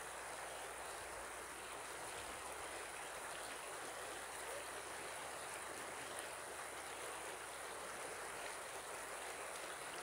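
River water flowing in a steady rush.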